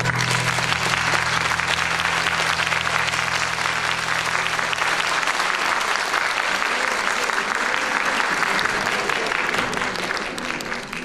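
Audience applauding, a dense crackle of many hands clapping. Low held notes of the accompanying music carry on under it and stop about halfway through; the clapping thins near the end.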